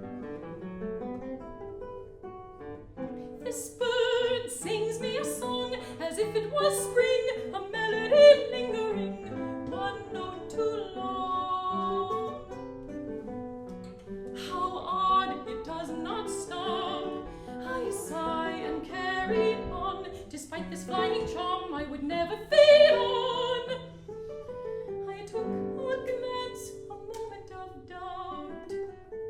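Mezzo-soprano singing an art song with vibrato over plucked guitar accompaniment. The guitar plays alone for the first few seconds, then the voice comes in.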